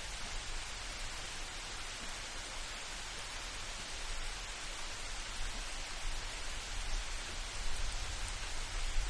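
Steady rain falling, an even hiss of drops, with a low rumble underneath that swells slightly near the end.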